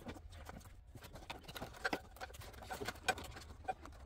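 Light, irregular clicks and rustles of LED-strip wire leads being fed by hand through a plastic radiator support, with a couple of sharper taps about two and three seconds in.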